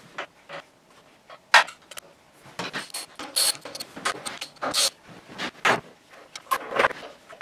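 Hand tool working the bolts on a motorcycle's lower fork legs: scattered metallic clicks, clinks and short scraping rasps, with a sharp knock about a second and a half in.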